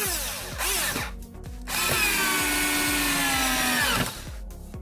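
A 12 V cordless drill fitted with a replacement RS550 motor runs up briefly twice, then runs steadily for about two seconds while drilling into a wood block. Its pitch sags slightly under load before it stops. The motor, now matched to the battery voltage, runs with an even whine and without the odd noise that the overvolted old 7 V motor made.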